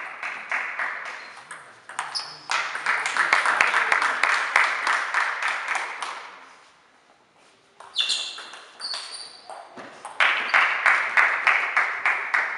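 Table tennis ball clicking rapidly back and forth off bats and table in rallies, echoing in a sports hall, with a short quiet break about halfway.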